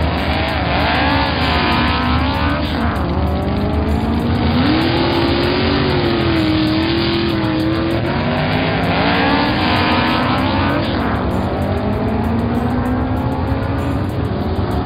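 Race car engine sound effects: several engines running hard together, their pitch rising and falling again and again as they rev, over a steady low rumble.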